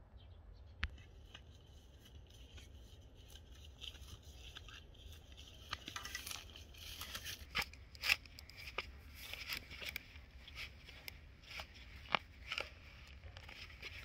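A metal spade cutting into soil in a carrot bed, digging the carrots up: irregular sharp crunches and tearing sounds of blade through earth, grass and roots, thickest from about six seconds in.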